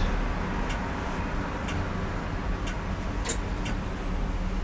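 Steady city street traffic with a low rumble and a few faint clicks.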